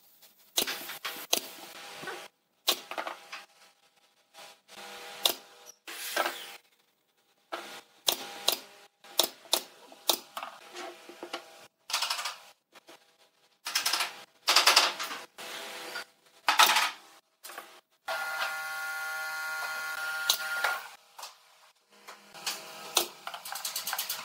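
Pneumatic brad nailer firing single shots into pine blocks, heard in short cuts with silent gaps between them. Wooden parts are knocked and set down, and a steady mechanical hum runs for about three seconds near the end.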